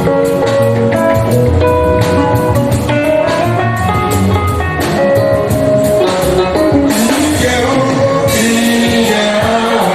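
Live church band music with guitar and sustained instrument notes, and singing voices; from about seven seconds in a bright hiss of cymbals or shakers joins.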